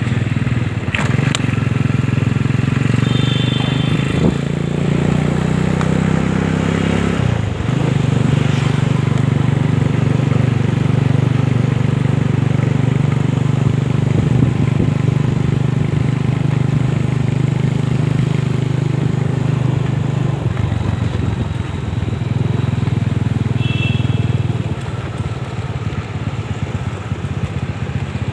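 Motorcycle engine running under way, a steady drone that shifts pitch about seven seconds in and dips briefly around twenty seconds in. Brief high whistling chirps come twice over it.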